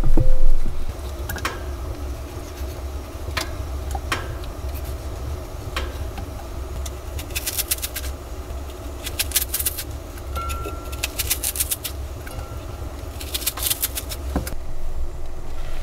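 A brief splash of water in an enamel bowl, then a small knife cutting an onion held in the hand: a few sharp knife clicks and four short bursts of crisp crunching slices. A steady low rumble runs underneath.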